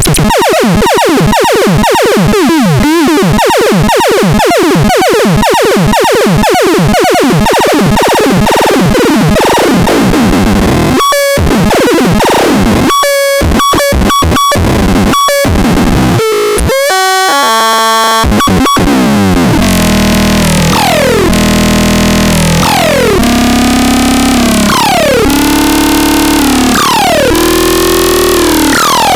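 Electronic synthesizer sounds: first a fast stuttering run of pulses, then scattered beeps and chirps, then a string of tones sweeping downward in pitch about once a second.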